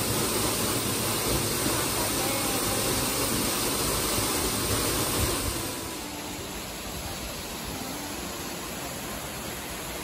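Waterfall rushing, a steady even roar of falling water; about six seconds in it drops a little in level and changes in tone.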